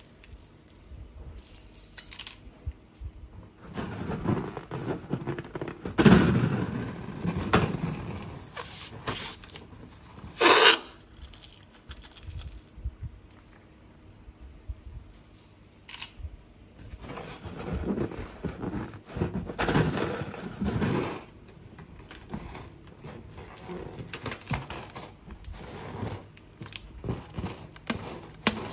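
Slime being handled and mixed by hand with its plastic piping bags and balloons: irregular bursts of noisy handling, loudest about six seconds in, with a short sharp burst about ten seconds in and another stretch of it later.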